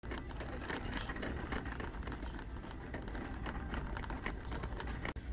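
Big-store ambience: a steady low hum with frequent irregular clicks and taps.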